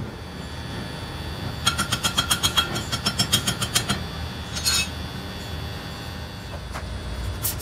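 Hand hammer striking a large steel tube: a quick run of ringing metal strikes, about seven a second, lasting about two seconds, then one more short clink, over a steady low workshop hum.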